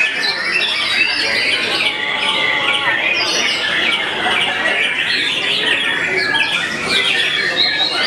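White-rumped shamas (murai batu) singing over one another in a dense, unbroken stream of quick whistles, trills and harsh chattering notes.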